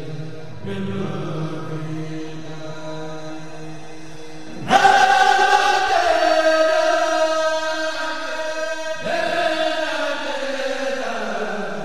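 Voices chanting together in long held notes. A louder, higher phrase comes in suddenly about five seconds in, and another about nine seconds in.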